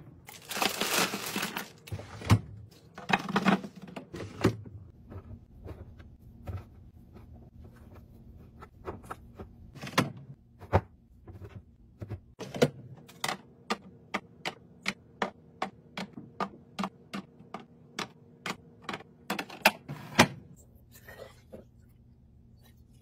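Cherry tomatoes tumbling into a clear plastic bin, followed by a long run of light knocks and clicks as produce is set down against the plastic. The clicks come about two a second for several seconds in the middle.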